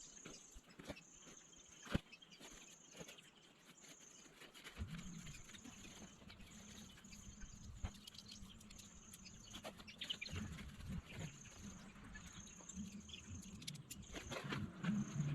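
Faint insect trilling in short repeated bursts, high-pitched, with scattered small clicks and knocks. A low steady hum comes in about five seconds in and grows louder near the end.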